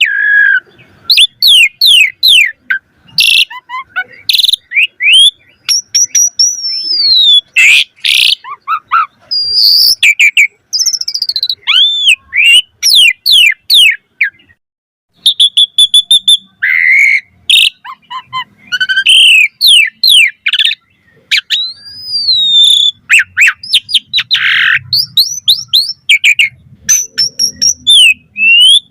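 Asian pied starling (jalak suren) singing a loud, fast, varied song of whistles, rising and falling slurs and sharp chattering notes, with a short pause about halfway through.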